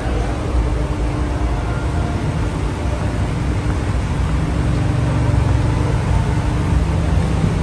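Low, steady drone of heavy engines on a car ferry's vehicle deck, swelling a little about halfway through.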